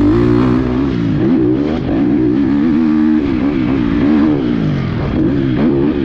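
GasGas MC 250F four-stroke single-cylinder motocross engine being ridden hard. Its pitch rises and falls repeatedly as the throttle is opened and shut.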